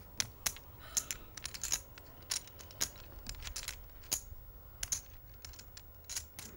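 Clay poker chips clicking against each other as a player handles a stack: a string of sharp, irregular clicks.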